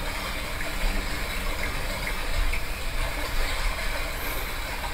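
HoMedics sound machine playing a babbling-brook recording: a steady rushing water noise, with a low rumble underneath.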